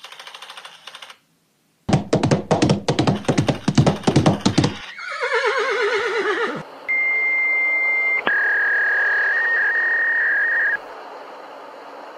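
A sound-effects sequence: a burst of rapid, loud clattering knocks lasting about three seconds, followed by a horse whinnying with a wavering, falling pitch. Then a long, high, steady whistle sounds, drops to a lower pitch partway through, and cuts off.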